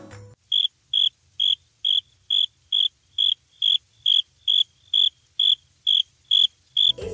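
Cricket chirping, about fifteen short, evenly spaced chirps at roughly two a second over an otherwise silent track. This is the stock 'crickets' sound effect for an awkward silence.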